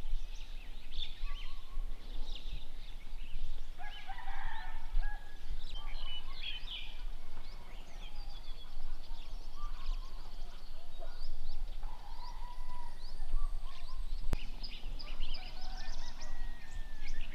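Many birds chirping and calling at once, with fowl-like calls among them. There is one sharp click about 14 seconds in.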